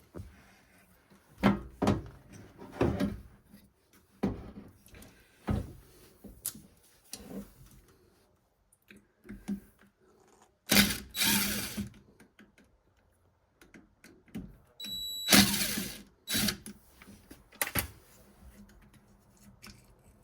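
Tool and handling noises while the carbon brushes are being unscrewed from a washing machine motor: a series of separate clicks and knocks, with two longer noisy scrapes or buzzes about 11 and 15 seconds in, the second starting with a brief high whine.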